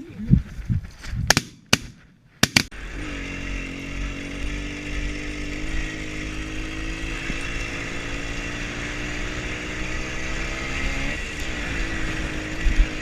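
A few sharp knocks, then an engine running steadily at an even pitch, which dips briefly about eleven seconds in and comes back up.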